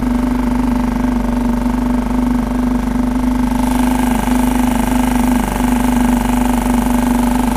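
Small Suzuki outboard motor running steadily at trolling speed, an even, unbroken hum that pushes the kayak along.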